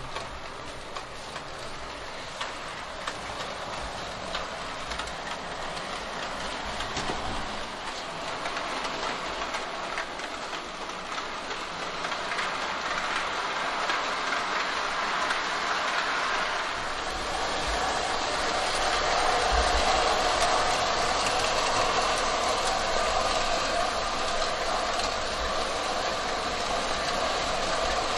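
Gauge 0 model train running on its track, the metal wheels clicking over rail joints and points. It grows louder about halfway through, and a steady whine joins the running noise in the second half.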